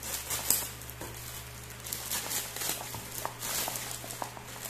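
Thin plastic courier pouch being cut with scissors and then crinkling and rustling irregularly as it is pulled apart by hand, with one sharp snip-like click about half a second in.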